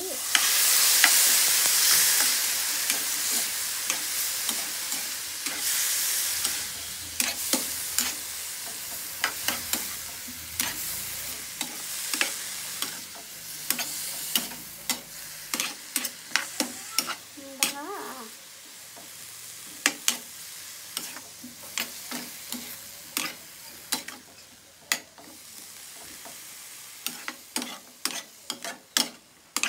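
Raw beef cubes searing in hot oil in a non-stick frying pan: a loud sizzle swells about a second in and slowly dies down as the meat is stirred. A spatula scrapes and taps against the pan throughout, the taps coming more often near the end.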